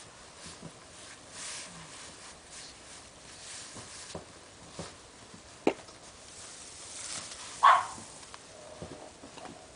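Snow being scooped and packed by hand: soft crunching scrapes and a sharp click partway through. A pug barks once, sharply, near the end; the bark is the loudest sound.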